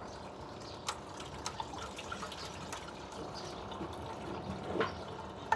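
Fresh goat milk pouring and dripping through a strainer into a container, with a few light clinks.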